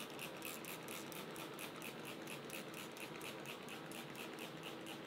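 Plastic trigger spray bottle misting water onto a wooden board, the trigger pumped rapidly in an even rhythm of about four to five squirts a second, over a faint steady hum.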